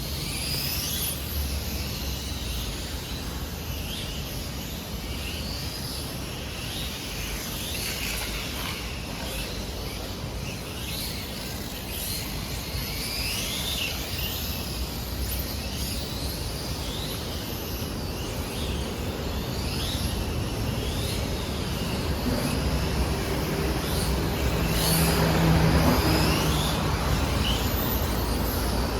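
Electric RC cars whining up and down in pitch as they accelerate and brake around the track, over a steady rumble of city traffic. A heavier road vehicle passes, louder toward the end.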